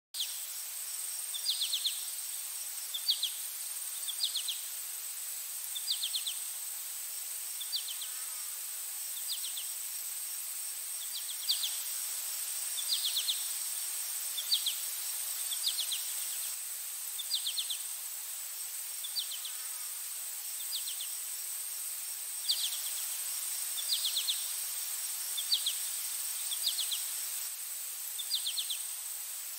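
Outdoor nature ambience: a steady high insect drone with a short trilled chirp repeating about every second and a half.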